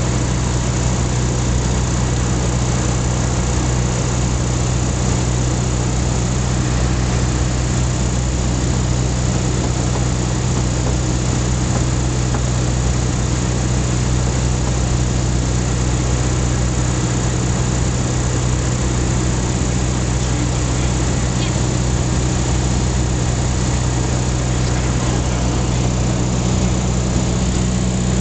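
Cabin noise inside a single-engine Cessna in flight: the piston engine and propeller drone steadily at constant power, with an even rush of wind, on the approach to landing.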